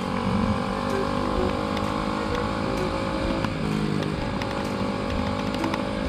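Motorcycle engine running under way, with rushing wind noise over it; the engine note dips briefly about three and a half seconds in.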